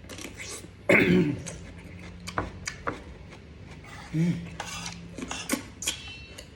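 Metal spoon and cutlery clinking and scraping against plates and bowls during eating, a series of short sharp clicks with a louder knock about a second in.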